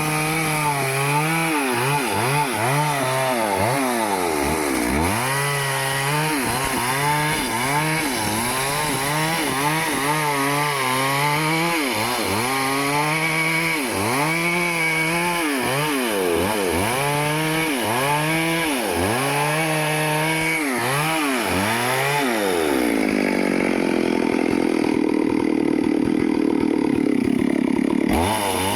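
Stihl two-stroke chainsaw cutting teak wood. For the first twenty seconds or so its engine speed rises and falls over and over, about once every second and a half. After that the pitch drops and it runs lower and steadier, with a rougher sound.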